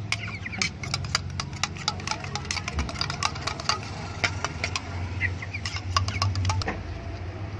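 A metal spoon clinking and scraping against a metal bowl, stirring a thick paste of yogurt, yeast and honey. The clicks come quick and irregular and stop about a second before the end. A steady low hum runs underneath.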